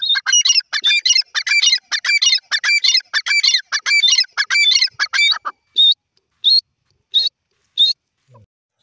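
Grey francolin calling: a fast run of loud, repeated high-pitched calls for about five seconds, then four single calls spaced well apart.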